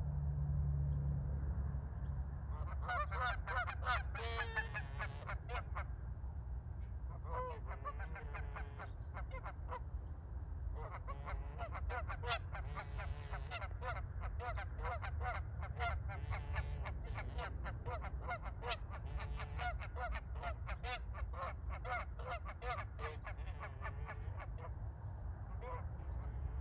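Canada geese honking in rapid runs of calls: a bout starting about three seconds in, another shorter one around eight seconds, then a long run through most of the rest. A steady low rumble lies underneath throughout.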